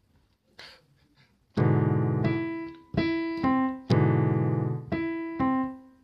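Keyboard music: after a quiet second and a half, a slow series of about seven chords is struck, each one sustained and left to fade before the next.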